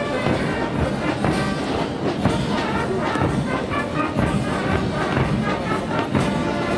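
Military brass band playing, with trumpets, trombones and tubas and bass drum beats.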